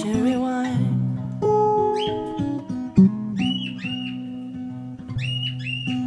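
Acoustic guitar music, with short, high bird calls from parrots in clusters over it, about two, three and a half and five seconds in.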